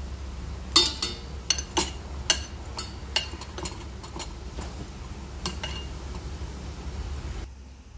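Metal tongs clinking against a bowl and a steel pot as food is placed: a quick run of sharp clinks in the first few seconds, a couple more later, over a low steady hum.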